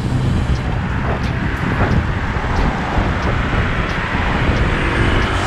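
Steady wind noise on the microphone of a camera riding along on a moving road bike, mixed with road and passing car traffic noise.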